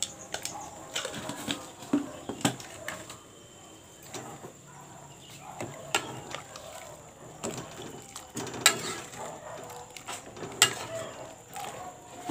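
Metal spoon stirring soup in an aluminium pot, knocking and scraping against the pot's side in scattered sharp clinks, the loudest two in the second half.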